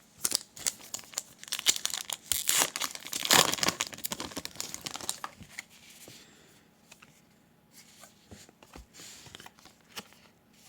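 A wrapper on a pack of baseball cards torn open and crumpled, a dense crackling that is loudest a few seconds in, followed by lighter crinkles and ticks as the cards are handled.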